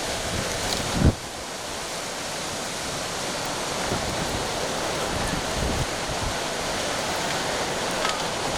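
Hurricane wind blowing hard and steadily, with gusts buffeting the microphone; a heavy buffet hits about a second in.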